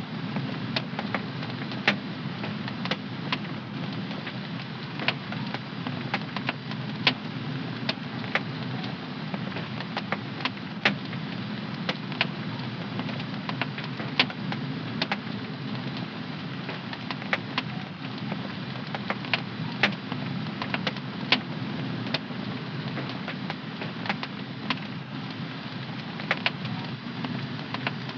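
Wood fire burning in a home fireplace: a steady rush of flame with irregular sharp crackles and pops.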